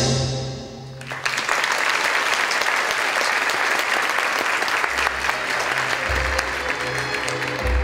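Audience applauding, starting about a second in after the orchestra stops playing. Low orchestral notes come back under the clapping in the second half.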